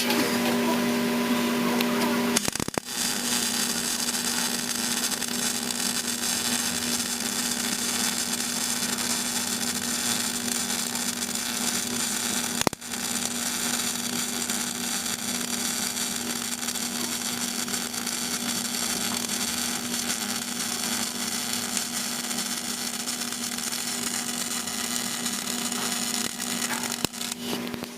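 CO2 semi-automatic (MIG/MAG) welding arc crackling steadily over a steady hum, broken off for a moment twice.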